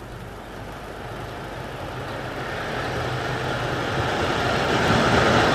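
Passenger train hauled by an electric locomotive running into a station, its rumble growing steadily louder as it approaches.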